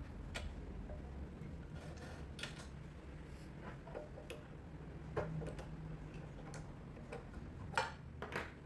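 A few scattered light clicks and taps at irregular intervals over a low steady hum, sharpest a little after five seconds and again near the end.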